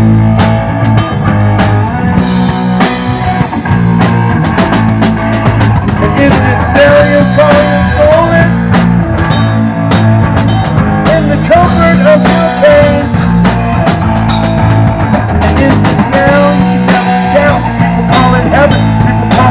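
Live rock band playing an instrumental passage on electric guitar, bass and drum kit. From about a third of the way in, a lead guitar line with bent notes rides over the steady bass and drums.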